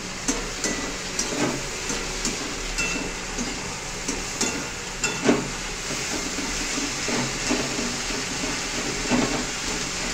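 Sliced onions frying in hot oil in a metal kadai: a steady sizzle, with the spatula scraping and clicking against the pan as they are stirred, the loudest knock about five seconds in.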